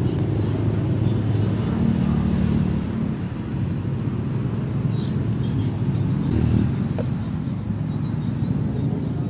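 Steady low rumble of road traffic, swelling twice as vehicles pass, about two seconds in and again about six seconds in.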